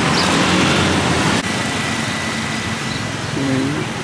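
Open-air market bustle with a motor vehicle engine running close by, and a sharp click about a third of the way in.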